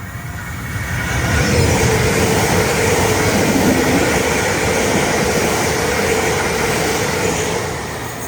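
Train passing at speed: a loud rush of wheel and air noise builds about a second in and eases off near the end, with a steady hum running under it.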